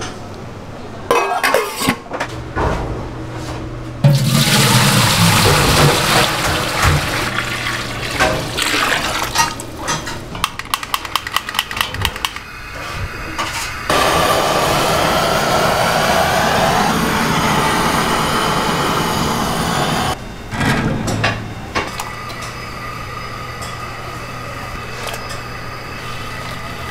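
A rush of water or liquid pouring, then a rapid run of clicks. After that a handheld kitchen blowtorch runs with a steady hiss for about six seconds, starting and stopping abruptly.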